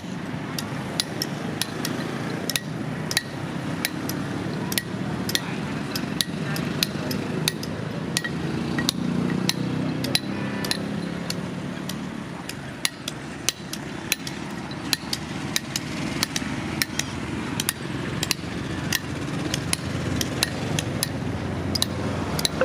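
Repeated hand hammer strikes on metal, roughly two to three a second with uneven spacing, over a steady low rumble.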